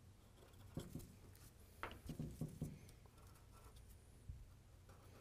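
Faint scratching and ticking of a marker on a cardboard template as hole positions are marked on the truck bed, with a few short clicks clustered around the middle.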